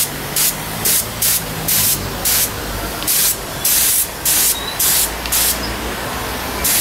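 Compressed-air paint spray gun hissing in short trigger bursts, about two a second, laying a second coat of base paint onto a plastic car bumper; the bursts stop about a second before the end.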